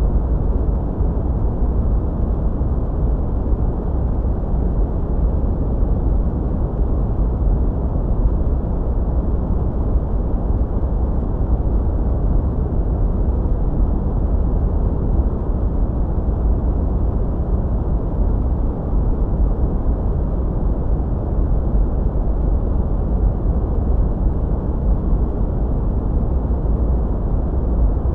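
Continuous sleep-aid noise: a steady, dark rushing sound with most of its weight in the deep bass and little high hiss, unchanging throughout.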